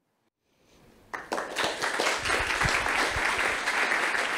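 Audience applauding. The clapping starts faintly about half a second in and swells to full strength after about a second.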